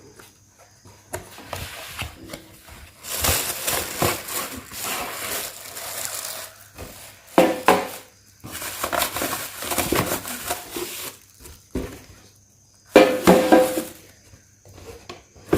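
A product box and its packaging being opened by hand: rustling, rubbing and scraping in three stretches of handling with short pauses between.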